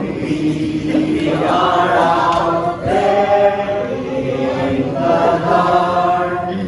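A group of voices singing together in long held notes, with a short break about three seconds in.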